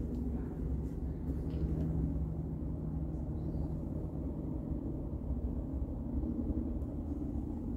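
Steady low mechanical hum with a couple of held low tones, running evenly throughout.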